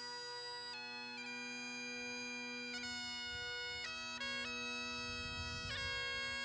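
Bagpipes playing a slow tune, held melody notes changing pitch over one continuous steady drone.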